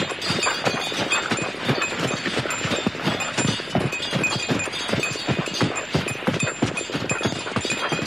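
Hoofbeats of a team of horses pulling a sleigh: quick, uneven clip-clopping, several steps a second.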